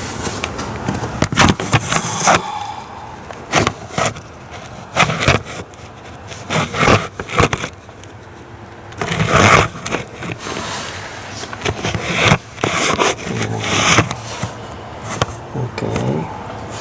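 Irregular scraping, clicking and knocking of hand tools and metal and plastic parts being handled while an ignition coil is worked out of a Ford 5.4L V8.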